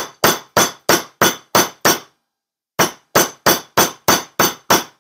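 Chasing hammer striking 14-gauge copper wire on a metal bench block, about three sharp metallic taps a second, each ringing briefly, with a short pause a little after two seconds in. The hammering paddles out the wire end, flattening it thin enough to punch.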